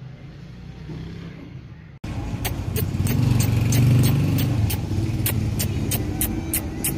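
Quiet low rumble, then about two seconds in a loud motor vehicle engine running steadily, with sharp regular clicks about three times a second over it.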